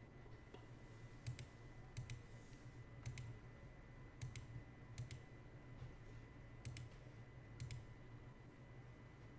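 Faint computer mouse clicks, about seven spread irregularly, each a quick press-and-release pair. A faint steady electrical whine runs beneath.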